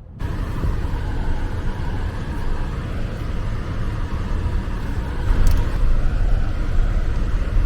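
Car on the move: a steady low rumble of engine and road noise that starts abruptly just after the beginning, with one small click about five and a half seconds in.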